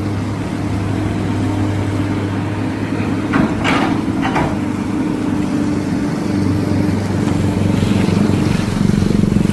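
A motor vehicle's engine running with a steady hum, and a brief higher-pitched sound about three and a half seconds in.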